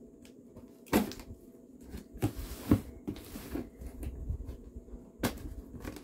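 Knife cutting through packing tape on a cardboard box: a few sharp knocks and clicks of blade and hand against the box, with a short scraping hiss of the blade through tape and cardboard just after halfway.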